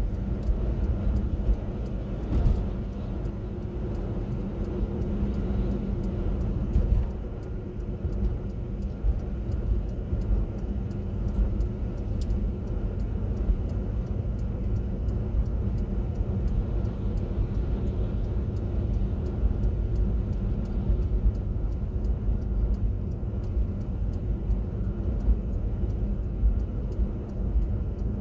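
A car driving along: a steady low rumble of engine and road noise that carries on without a break.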